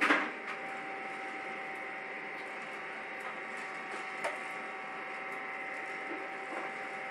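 Gene Cafe CBR-101 home coffee roaster running steadily: a mechanical hum with a constant tone from its fan and rotating roasting chamber. There is a sharp knock right at the start and a single click about four seconds in. The roast is well past first crack, and second crack has not yet begun.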